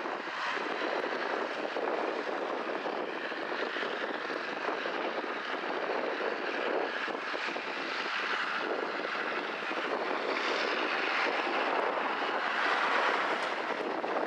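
John Deere 3050 tractor running steadily under load while driving its arm-mounted hedge cutter along a hedge, engine and cutter merging into one even drone that grows a little louder for a few seconds past the middle.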